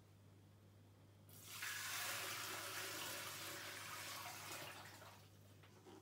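Water being poured from a metal container into a vintage Hoover spin dryer, splashing for about four seconds; it starts about a second in and dies away near the end.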